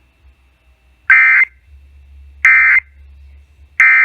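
Three short, loud bursts of Emergency Alert System digital data tones, evenly spaced about a second apart. These are the end-of-message (EOM) bursts that close the alert.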